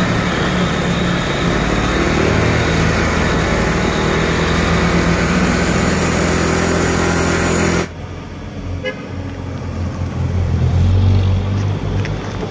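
Loud, steady noise of a truck on the road, which cuts off suddenly about eight seconds in. A quieter truck engine follows, its low hum rising around ten to eleven seconds in.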